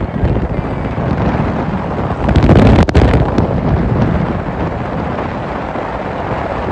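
Wind buffeting the microphone from a moving vehicle, with road noise beneath. It swells for a moment about two and a half seconds in, with a couple of sharp clicks near three seconds.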